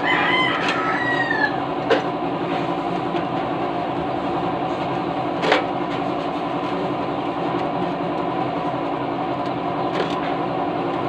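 A steady mechanical hum runs throughout, with a short squeal right at the start. Three sharp metal knocks sound about two, five and a half and ten seconds in, as the clutch pressure plate and disc are handled at the flywheel.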